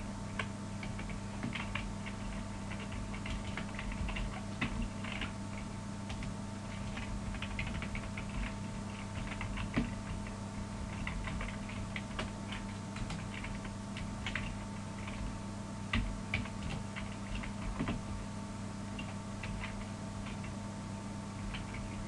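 Computer keyboard typing in irregular bursts of keystrokes over a steady low hum.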